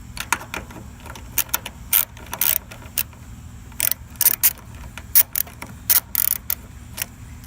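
Irregular clicks and short scraping rattles of a stuck John Deere GX75 starter relay being wiggled and tugged by hand in its mounting among the wiring.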